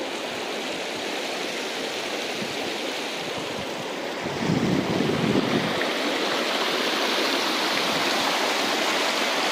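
Shallow mountain river rushing and splashing over a rocky bed, growing a little louder and brighter after about halfway. There is a brief low rumble around halfway.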